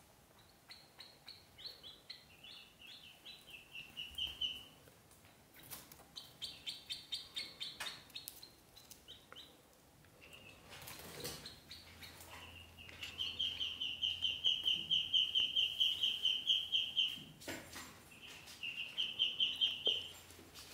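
Ducklings peeping: runs of quick, short, high-pitched peeps, several a second, the early runs falling slightly in pitch and the longest run lasting about four seconds in the second half. A short rustle about halfway through and a few faint clicks.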